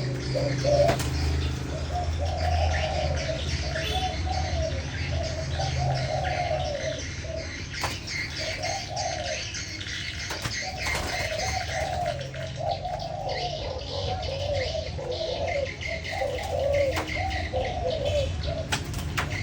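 Spotted doves cooing over and over, one phrase after another with short gaps, as in a cooing contest between two birds. Smaller birds chirp higher up.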